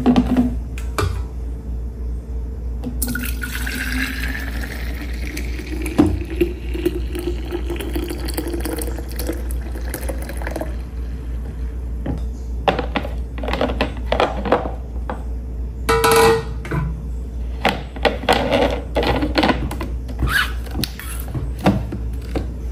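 Water running into a container, its pitch rising as it fills, over a steady low hum, followed by a series of knocks and clatter.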